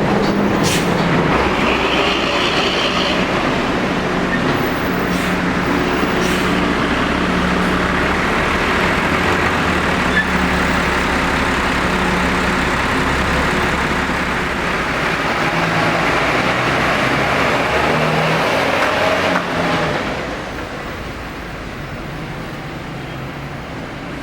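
Large bus's diesel engine running loudly close by, a steady rumble with a low hum; it drops off sharply about twenty seconds in, leaving quieter traffic noise.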